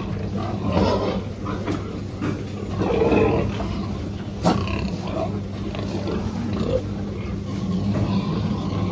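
Pigs grunting over a steady low hum, with one sharp click about four and a half seconds in.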